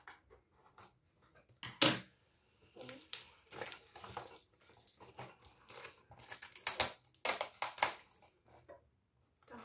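A cardboard gift box being cut open with scissors and torn and unfolded by hand. There are irregular bursts of crackling cardboard, tearing tape and rustling paper, loudest about two seconds in and again around seven to eight seconds in.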